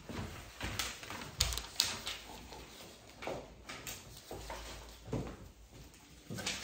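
Scattered light knocks and rustles, about half a dozen, from a person moving about close to the microphone and handling sheets of paper.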